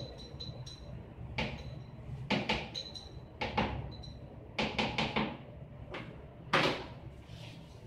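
Glass culture jars knocking and clinking against each other while they are washed by hand in a plastic basin of water: about ten sharp, irregular knocks, a few ringing briefly, the loudest near the end. A steady low hum lies underneath.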